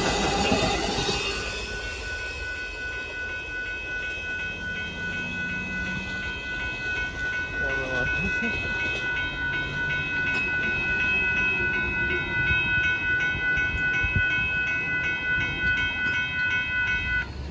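Northbound Amtrak Texas Eagle passenger train passing, its wheels clacking on the rails, loudest in the first second or so and then lower. Over it a grade-crossing bell rings rapidly and evenly, then cuts off abruptly near the end.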